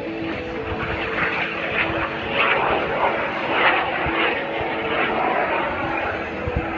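Aerobatic airplane's engine heard overhead as it climbs steeply trailing smoke, the sound swelling from about a second in and easing off toward the end.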